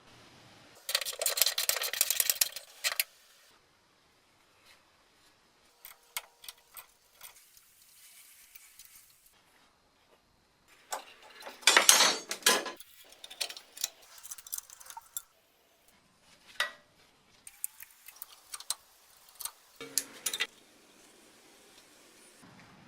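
Metal tools and parts clinking and rattling in separate spells: a loud rattle lasting about two seconds, beginning about a second in, another loud one near the middle, and scattered single clinks between, with short quiet gaps.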